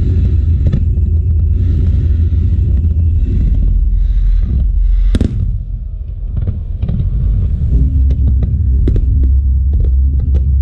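Aerial firework shells bursting in a continuous deep booming rumble, with one sharp bang about five seconds in. It is followed by many quick crackling pops from crackling stars.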